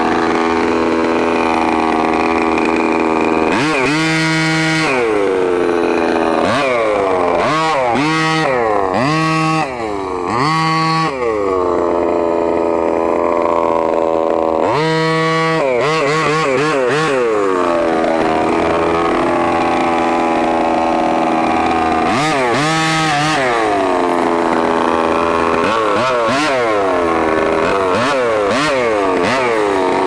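26cc two-stroke gasoline engine of a 1/5-scale Redcat MT RC monster truck, revved up again and again in throttle bursts and dropping back to a lower steady run between them, with a cluster of quick blips in the first third and further bursts near the middle and later on.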